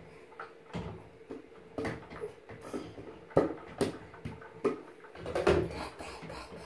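Scattered taps and knocks of a plastic bath toy against a plastic laundry basket in a bathtub, as a baby handles it, with a short baby vocal sound about five and a half seconds in.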